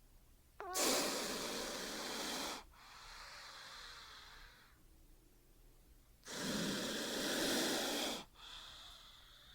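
A snake hissing twice. Each loud hiss lasts about two seconds and is followed by a softer, quieter hiss.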